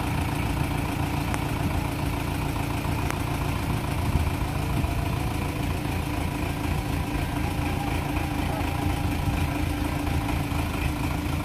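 Sonalika tractor's diesel engine running steadily at idle.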